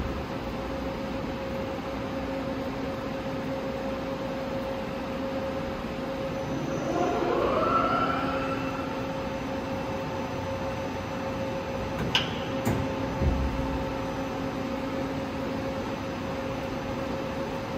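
SMART NL 4000L CNC turning centre running with a steady machine hum. About seven seconds in, a motor whine rises in pitch. Two sharp clicks and a low clunk follow about twelve to thirteen seconds in.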